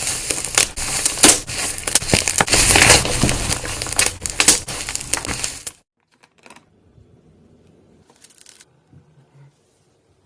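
Slime being squeezed and pressed by hand, with dense crackling and crunching full of sharp clicks. It stops suddenly about six seconds in, and only a few faint handling sounds follow.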